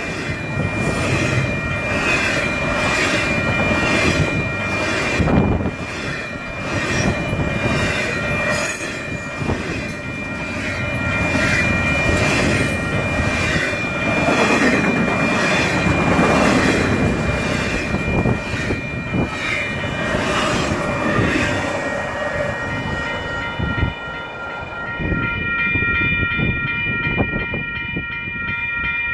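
Double-stack intermodal freight train's container well cars rolling past at speed, with a rumble and a regular clatter of wheels over the rails, over a steadily ringing grade-crossing bell. The train noise fades about 24 seconds in as the last car passes, leaving the crossing bell ringing.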